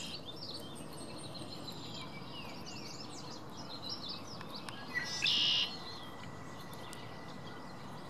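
Several wild songbirds chirping and singing over steady outdoor background noise, with one brief, louder call about five seconds in.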